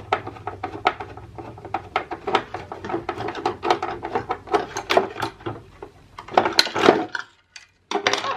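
Irregular clicks, taps and clatter of plastic and metal parts being handled as the back add-on section of a defibrillator is taken apart, with a denser, louder rattle about six and a half seconds in; the sound drops out briefly near the end.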